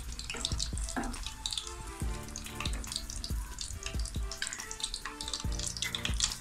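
Battered pieces of surmai fish deep-frying in hot oil on a low flame: a steady sizzle with many small crackles and pops.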